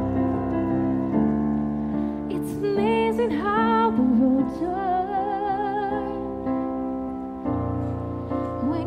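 A woman singing to her own chords on a Yamaha electric keyboard. The chords sound steadily throughout; her voice comes in about two and a half seconds in with a long, wavering held note, drops out after about six seconds, and comes back near the end.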